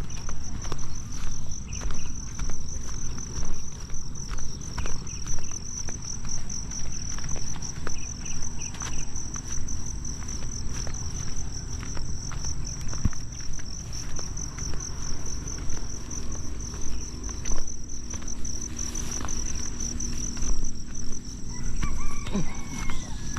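Insects trilling steadily, a high, fast-pulsing chirr, over a low rumble.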